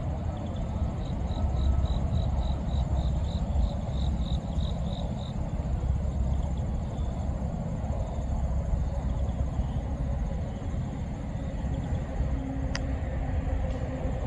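Insects trilling steadily, with a run of high chirps about three a second for the first five seconds. All of it sits over a steady low rumble.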